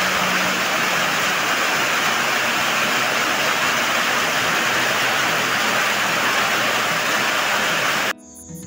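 Heavy tropical rain pouring down as a loud, steady hiss, cutting off suddenly near the end.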